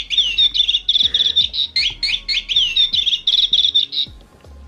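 A plush bird cat toy's built-in sound chip plays a recorded bird chirping call over and over while a cat handles it; the chirping stops about four seconds in.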